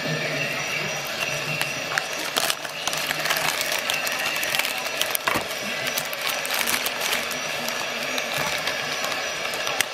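Clear plastic bag crinkling and rustling as it is handled and peeled back from a digital caliper: a dense run of irregular crackles, busiest in the middle.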